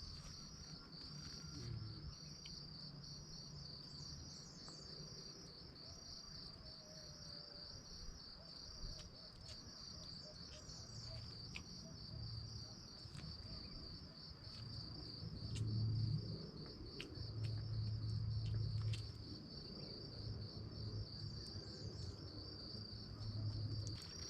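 Insects trilling in a steady, high-pitched chorus that pulses about twice a second, with scattered faint clicks. Intermittent low rumbling gets louder in the second half, strongest about two thirds of the way in.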